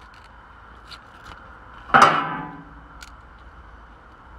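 Picking boiled crab meat from the shell with a small knife: a few faint clicks, and one loud sharp crack about two seconds in with a brief ringing tail.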